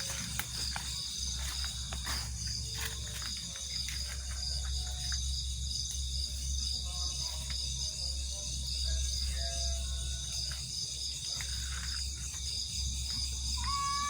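Crickets and other night insects chirring steadily, with a few faint, short tones scattered through. Near the end a goat begins a long, even bleat.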